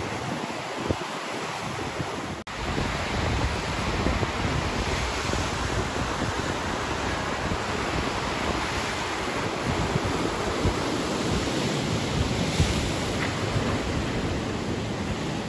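Sea surf breaking and washing on a beach, a steady rushing noise, with wind buffeting the microphone in gusts.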